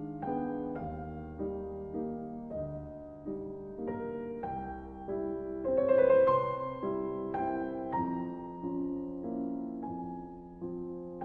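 Slow, gentle piano music, a new note or chord struck about every half second and left to ring, swelling loudest about six seconds in.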